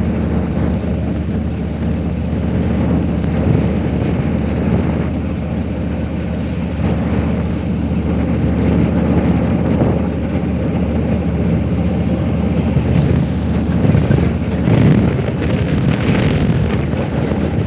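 Car driving on the road: a steady low engine and tyre drone with some wind noise, swelling a little in the last few seconds.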